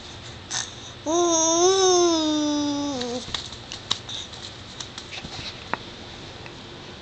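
A 7-month-old baby vocalizing: one drawn-out voiced note about two seconds long that rises a little and then falls, followed by a scatter of sharp tongue clicks.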